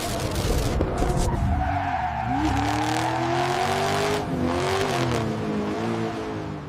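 A car driving hard, its engine or tyre-squeal pitch rising and falling, fading out near the end.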